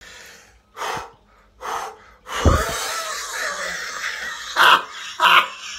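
A man breathing heavily: two short breaths, then a long strained groan that starts with a deep burst, and two loud short grunts near the end.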